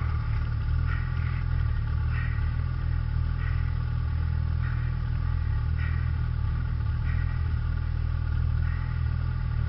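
Snowmobile engine idling steadily.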